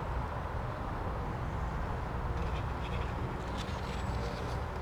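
Steady low rumble of outdoor background noise, with faint short high chirps or ticks in the second half.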